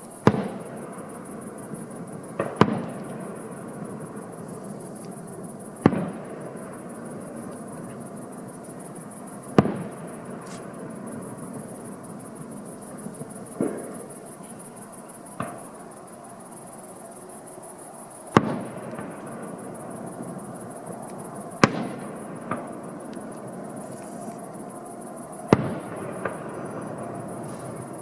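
Aerial fireworks shells bursting in loud, sharp bangs every few seconds, about ten in all, each with a short echoing tail.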